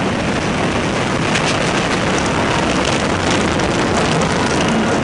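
Kingda Ka roller coaster's hydraulic launch heard from the front-row seat: a loud, steady rush of wind on the microphone mixed with the rumble of the train as it speeds down the launch track and up the tower.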